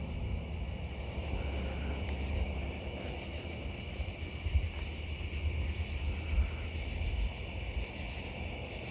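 Night insects: crickets trilling steadily, with a higher chirping pulsing about two to three times a second, over a low rumble.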